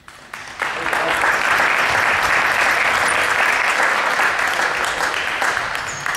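Spectators clapping, starting suddenly about half a second in, holding steady and tapering off near the end.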